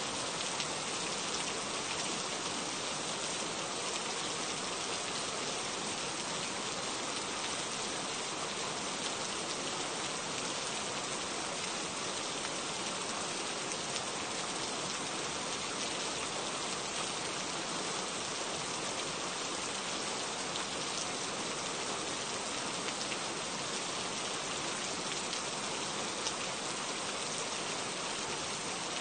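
Steady rain falling: an even hiss with scattered faint ticks of individual drops.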